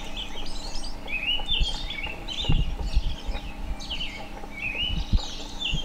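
Songbirds chirping and calling in quick, short high phrases, over and over, with a few low thumps.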